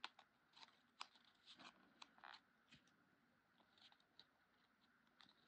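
Faint handling of cardstock: scattered soft clicks and rustles as the paper bow's centre band is folded round and pressed in place.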